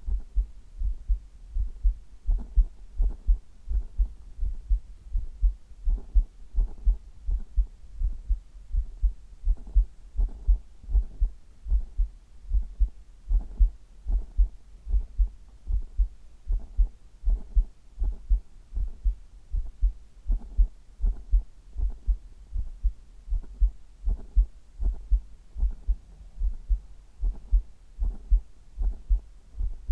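Human heartbeat picked up at the chest: low double thumps repeating in a steady rhythm, a little faster than once a second.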